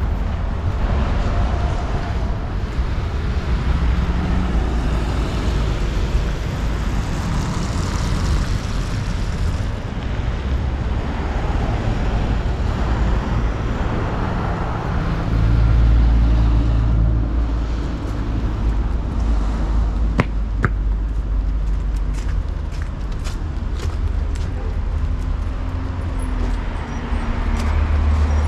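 City street traffic: cars passing in a steady stream, with one vehicle swelling louder a little past the middle and another near the end. A few short sharp clicks come about two-thirds of the way through.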